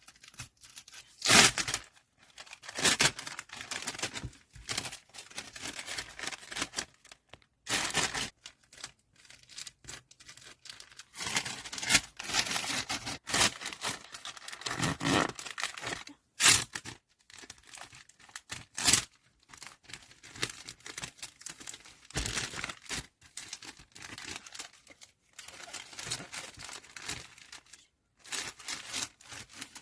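Plastic photocard packaging crinkling and being torn or peeled in short, irregular bursts while photocards are wrapped by hand.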